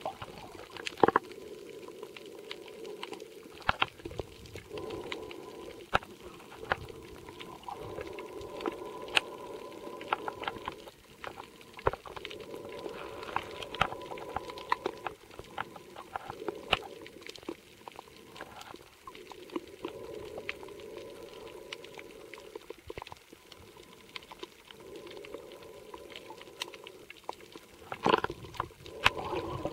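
Underwater sound picked up by a waterproof camcorder's microphone while it is submerged: sharp clicks and crackles throughout, over a muffled water rushing that swells and fades every few seconds. There are louder knocks about a second in and near the end.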